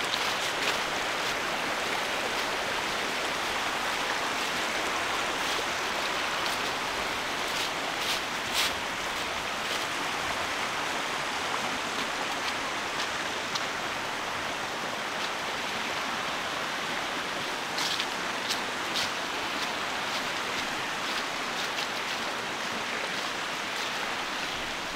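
Steady rushing of a nearby stream, with a few short crisp ticks on top, clustered around eight and eighteen seconds in.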